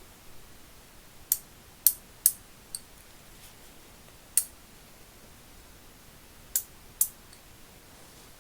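K-D 721108 3/8-inch drive ratchet mechanism, freshly reassembled, ratcheting by hand: the pawl clicks over the gear teeth in about seven sharp, unevenly spaced clicks.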